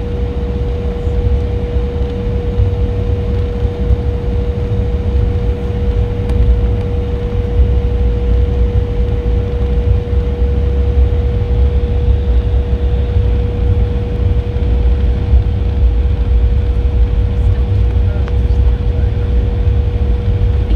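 Jet airliner cabin noise during taxi: the engines running steadily with a constant hum and a deep, unbroken rumble.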